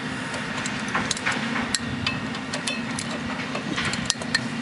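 Flat screwdriver working against the metal of a 2005 Cadillac DeVille's front brake caliper and bracket, giving irregular sharp metallic clicks and taps over a steady low hum.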